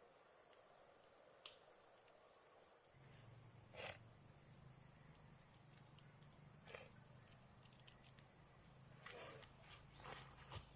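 Faint, steady high-pitched insect chirring, with a few soft knocks scattered through, the loudest about four seconds in, and a low hum that starts about three seconds in.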